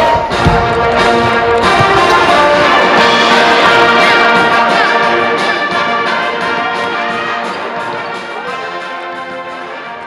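Brass-led music, trumpets and trombones playing held chords, with a sharp hit about half a second in; it fades out gradually over the second half.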